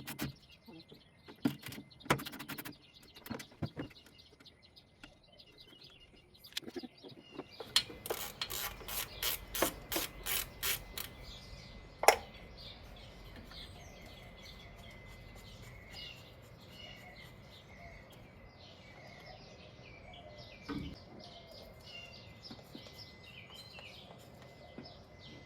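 Clicks and knocks of hand tools being worked, including a run of clicks at about three a second and then one sharp knock, during belt-replacement work on a car engine. After that, small birds chirp repeatedly in the background.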